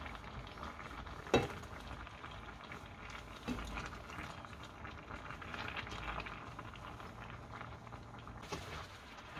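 Spicy braising sauce simmering and bubbling in a stainless steel pan as a spoon is worked through it, ladling sauce over the fish. The spoon knocks sharply against the pan a little over a second in, and more lightly a couple of seconds later.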